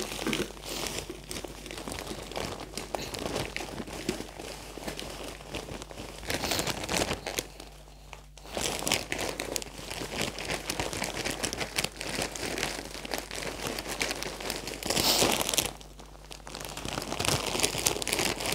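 Plastic bag of potting soil crinkling as it is tipped and shaken, with soil pouring into a plastic pot. The crackling runs on with short lulls about eight seconds in and near the end, and is loudest shortly before.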